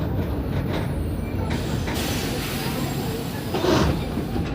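Mercedes-Benz OF 1519 city bus running, its diesel engine giving a steady low drone. There is a brief hiss about two seconds in and a short louder noise near the end.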